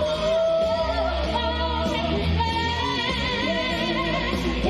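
Amplified show music for a live stage performance: a singer holds long notes with a wavering vibrato over a band track with a steady bass.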